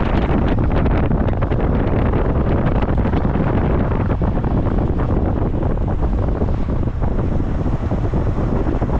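Heavy wind buffeting the microphone: a loud, steady rumble with irregular gusting flutter.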